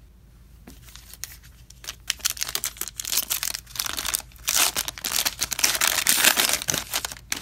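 Foil wrapper of a trading-card fat pack being torn open and crinkled by hand: a run of crackling rips and crinkles starting about a second in, with a brief lull midway.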